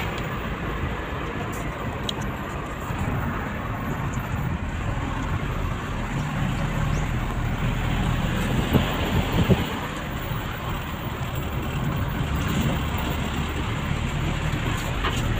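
Steady road and engine noise heard from inside a moving car's cabin, with a couple of short knocks about nine seconds in.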